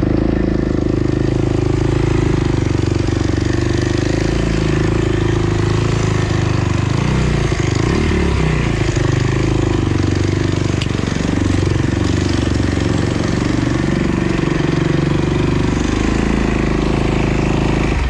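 Off-road dirt bike engine running hard while riding, its pitch rising and falling as the throttle is worked.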